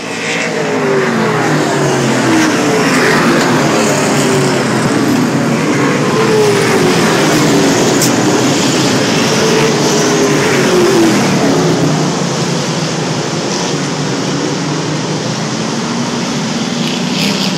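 A field of Sportsman-class race cars running past on the track, several engines revving at once and rising and falling in pitch as they accelerate and lift. The sound is loud and continuous and eases a little after about twelve seconds.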